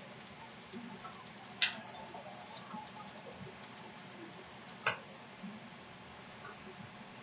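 Faint room noise with scattered light ticks and taps, and two sharper clicks, one about one and a half seconds in and one near five seconds in.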